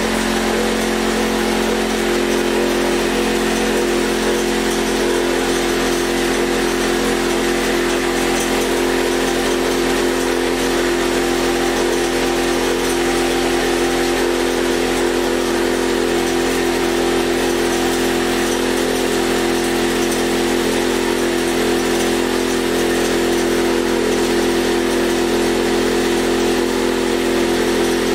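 Air compressor running steadily, keeping the cylinder pressurized with air so the valve stays closed while the spring is off, with a hiss over the motor hum.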